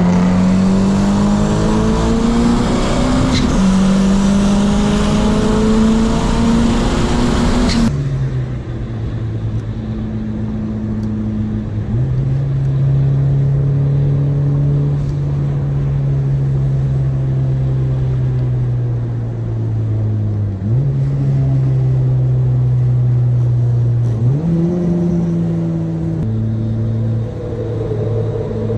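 Turbocharged Honda Civic engine accelerating at full throttle, its pitch climbing with an upshift about three seconds in. After a sudden cut about eight seconds in, it is heard from inside the cabin cruising at steady throttle, with a few brief rises and falls in pitch.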